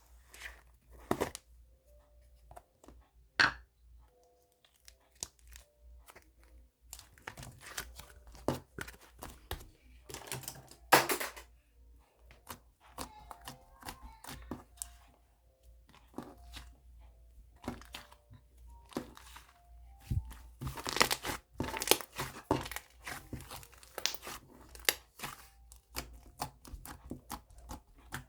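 Irregular crinkling and tearing handling noises with scattered sharp clicks, denser in two stretches.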